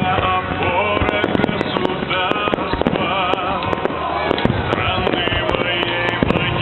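Fireworks display: shells bursting in an irregular run of many bangs and crackles, with music playing under them.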